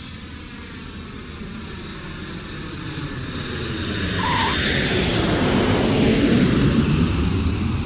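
Jet airliner flying past, a steady rushing engine noise that swells louder and peaks about two-thirds of the way through, then cuts off suddenly near the end.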